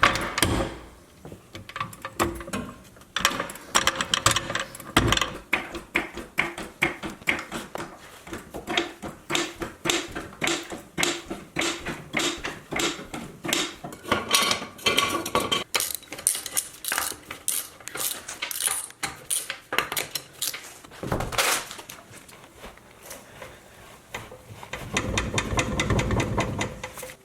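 Metal tools clinking and knocking against metal parts in quick, irregular strikes, with a longer rush of noise near the end.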